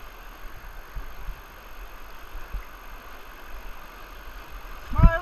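Whitewater rapid rushing steadily around a kayak, with a few low thumps about one and two and a half seconds in. Near the end, a short loud shout that rises and falls in pitch.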